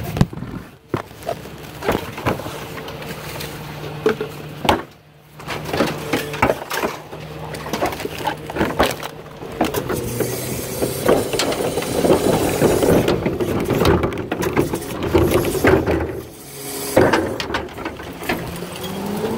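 Rear-loader garbage truck's engine running steadily under repeated knocks, bangs and clatter as trash is handled into the hopper, busiest in the second half. Near the end the engine's pitch starts to rise.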